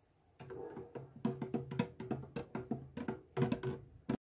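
Background music with quick percussive beats over held notes, starting about half a second in and cutting off abruptly near the end.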